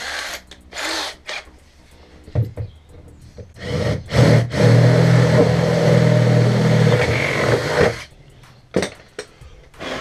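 Cordless drill with a 10 mm bit drilling a hole through a fridge's cabinet wall: a few short trigger blips, then the drill runs steadily under load for about three and a half seconds. Near the start, a couple of brief rattles as the bit is fitted in the chuck.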